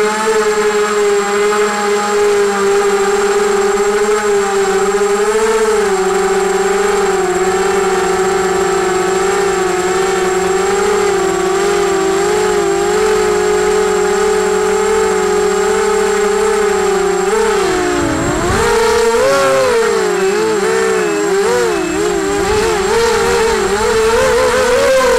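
EMAX NightHawk 250 quadcopter's brushless motors and propellers whining at a nearly steady pitch while GPS return-to-home flies the quad. About two-thirds of the way through, the pitch swings up and down for a few seconds as the throttle changes, then settles slightly higher. Heard close up from the action camera mounted on the quad.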